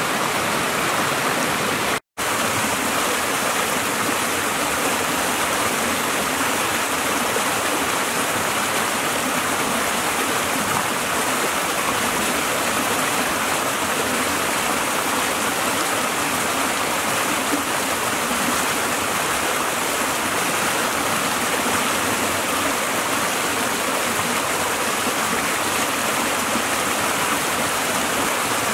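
A rocky creek rushing over boulders and small cascades: a steady, full hiss of moving water. A split-second dropout breaks it about two seconds in.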